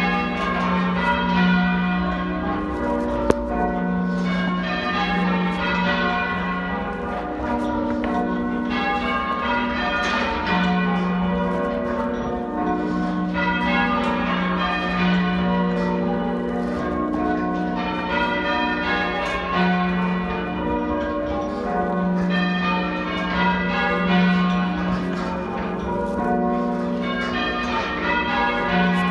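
A ring of church bells in full-circle change ringing, half-muffled: each bell's clapper is muffled on one side, so every other stroke sounds dull. Rows of bells strike in steadily changing order, the way bells are rung for mourning or remembrance. There is a single sharp click about three seconds in.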